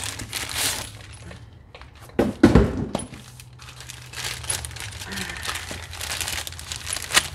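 Cardboard box and plastic wrapping crackling and crinkling as new ATV axles are unpacked, with a heavy thump about two and a half seconds in and a sharp click near the end.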